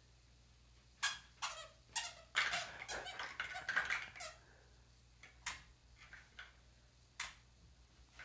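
A toddler's squeaky shoes squeaking as she walks: a short, high squeak at each step. The squeaks come close together in a quick run in the middle.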